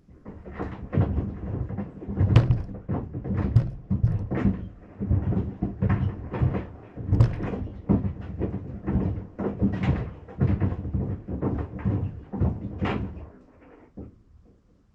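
Sandals knocking against the sides of a Maytag washing machine as the load is churned: a run of irregular thuds and clunks that dies away shortly before the end.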